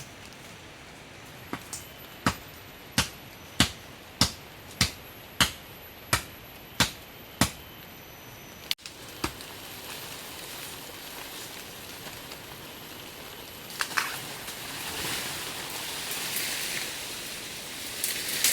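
Wood being chopped with a blade: about ten sharp, evenly paced strokes, roughly one and a half a second. After a break, a rising rustling hiss fills the last few seconds.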